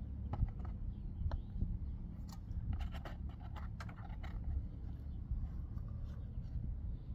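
A glued paper patch being flipped and pressed onto a torn speaker cone: scattered light scrapes and small clicks of paper rubbing on the cone, most of them in the first few seconds, over a steady low hum.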